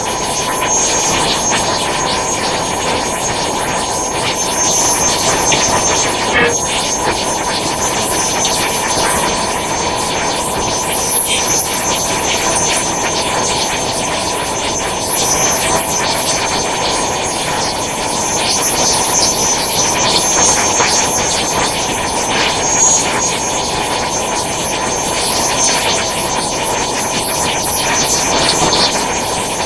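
Angle grinder grinding the edge of a steel piece: a steady, loud motor whine with a high tone over dense grinding noise, swelling and easing slightly as the wheel bites into the metal.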